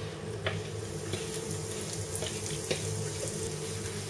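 Ground garlic, almond and fried-bread picada sizzling in warm oil in a nonstick frying pan, a steady sizzle with a few sharp crackles, as it is spread and stirred with a wooden spoon.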